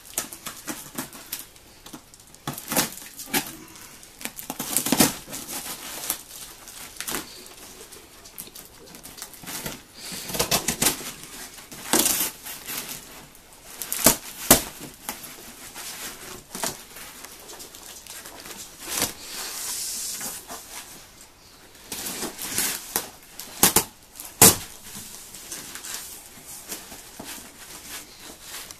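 Cardboard box and packing tape being cut and torn open by hand: irregular rips, scrapes and rustling of cardboard, with a few sharper, louder tears.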